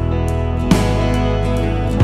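Soft instrumental background music, with a new chord struck a little under a second in.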